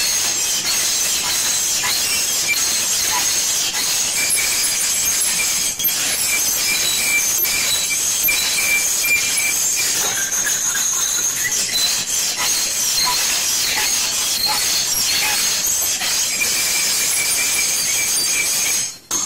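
Metal fork scraping across a plate: a continuous high-pitched screech with squealing tones, dipping briefly just before the end.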